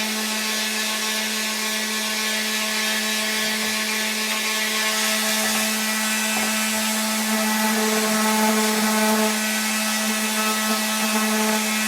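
A power tool's electric motor running continuously at a steady pitch, a little louder in the second half.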